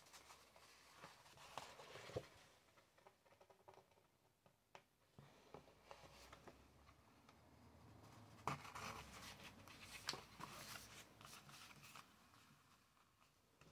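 Faint rustling and scratching of a darning needle and mohair yarn being drawn through thick art paper as the paper is handled, with a few sharp clicks.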